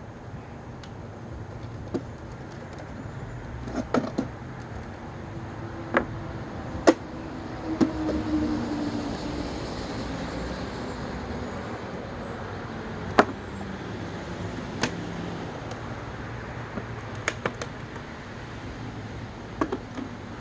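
Steady outdoor background noise, with a vehicle going past about halfway through, and scattered sharp clicks and knocks from things being handled.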